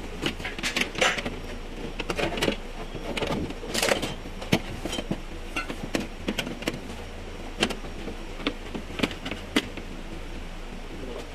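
Irregular clicks, taps and knocks of a power window regulator being handled and worked into place inside a GMC Tahoe's bare front door shell, over a steady low hum.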